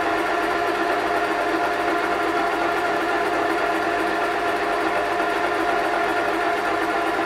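Cuisinart Gelato & Ice Cream Professional ice cream maker running, its built-in compressor and paddle motor churning vanilla ice cream mix. It gives a steady hum with a constant pitched whine.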